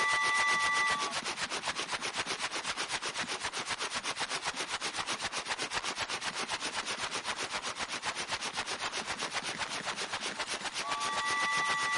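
Train sound effect: a fast, even clatter throughout. A steady whistle made of several tones at once ends about a second in, and another blast starts near the end.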